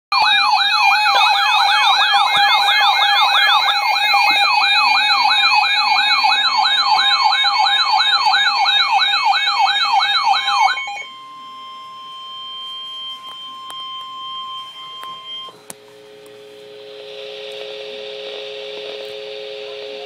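NOAA weather radio sounding its warning alarm: a loud siren that wails rapidly up and down, about two and a half sweeps a second, cuts off about 11 seconds in and gives way to quieter steady tones.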